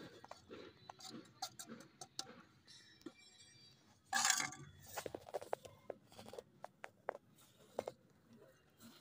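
Hands mixing crumbly cow-dung manure and compost on a hard floor: scattered soft rustles, crumbles and small clicks, with one louder rasping scrape a little after four seconds in.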